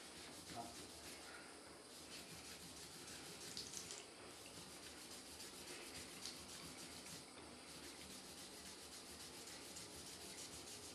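Wet melamine foam sponge scrubbing a cork rod handle: a faint rasping rub in quick back-and-forth strokes that become more regular in the second half, as grime comes off the cork.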